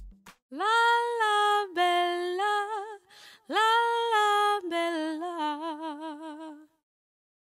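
A woman singing a short unaccompanied melody: a few long held notes, then a wavering run that dies away near the end.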